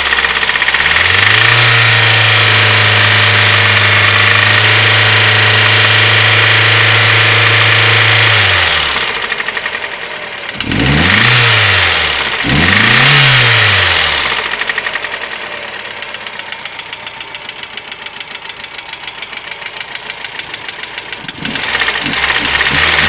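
Chery Amulet car engine revved and held at a raised speed, dropped back, blipped twice, then idling with an even rhythmic knock, and revving again near the end. The knock is of unknown cause; the owner is asking what is knocking.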